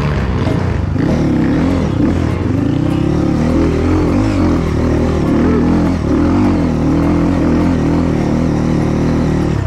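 Dirt bike engine running hard on a climb, its revs rising and falling again and again as the rider works the throttle, heard from on the bike.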